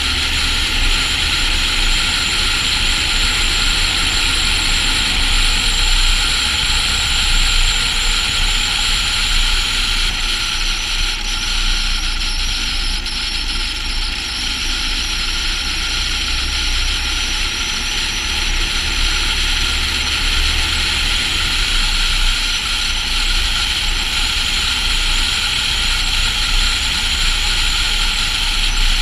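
Volvo FH16 700 truck driving along a snowy road: a steady rush of road and wind noise over the low drone of its 16-litre straight-six diesel engine.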